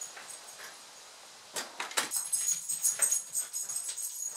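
Metal tags on a dog's collar jingling and clinking as the dog moves, with a few light knocks, starting about a second and a half in.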